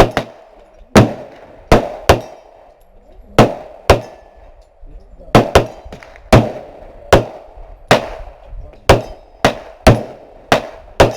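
Gunfire at a shooting range: about fifteen sharp shots at an irregular pace, some in quick pairs, each with a short echo.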